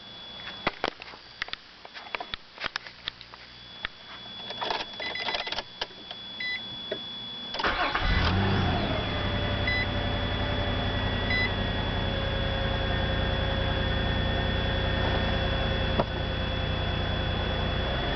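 Clicks and knocks with a few faint short beeps, then, about seven and a half seconds in, the 2002 Nissan Maxima's V6 engine cranks, catches and settles into a steady idle, its pitch easing down briefly after the start. This is the engine whose under-hood rattle the owner is trying to identify, a noise that seems to grow louder as it warms up.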